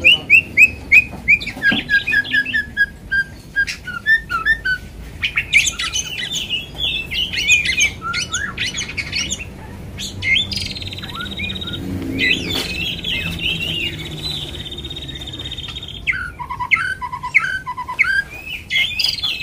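White-rumped shama singing a long, varied song. It moves from fast runs of repeated notes and chattering trills to a long rattling phrase in the middle, then a few low clear whistles near the end before the quick notes return.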